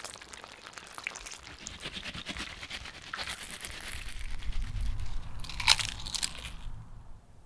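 Crisp crackling of freshly deep-fried battered chicken, then a loud crunch as a crispy piece is bitten into, about six seconds in, with a few smaller crunches after it.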